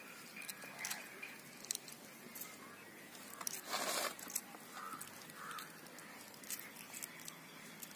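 Children chewing and eating peeled eggs: soft scattered mouth clicks and smacks, with one short rustling burst about four seconds in.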